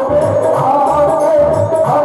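Devotional Krishna bhajan music: a sustained melodic line over a steady hand-drum beat.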